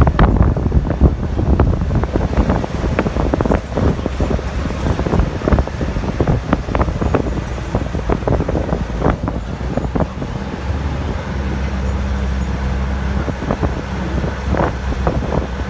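Bus on a rough mountain road, heard from inside: a low rumble of engine and tyres with frequent rattles and knocks from the bus body, and wind noise. After about ten seconds the knocks thin out and a steadier low drone takes over.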